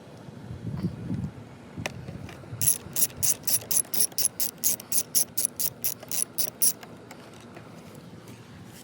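Socket ratchet wrench clicking, a quick run of about twenty sharp clicks at roughly five a second lasting some four seconds, as a bolt is turned.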